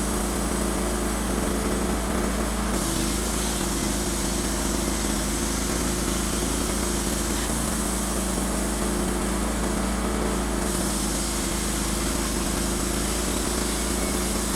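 Wood-Mizer LT15 Wide band sawmill running, a steady engine-like drone with a high hiss.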